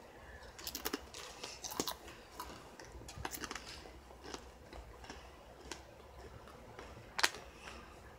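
Ridged potato chips being bitten and chewed: a run of faint, irregular crunches and crackles, with one louder crackle about seven seconds in.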